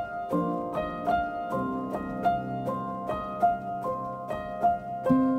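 Background music: a steady run of plucked notes, about two or three a second, over held lower notes.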